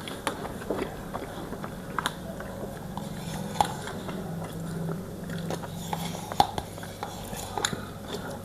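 A person chewing food, with scattered short mouth clicks.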